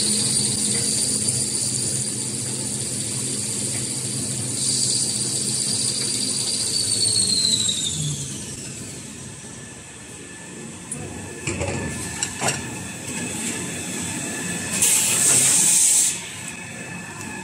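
Paper towel rewinding line running: a steady high whine over a low hum, which glides down in pitch and fades about eight seconds in. Then lower machine noise with a few knocks, and a short loud burst of hiss about fifteen seconds in.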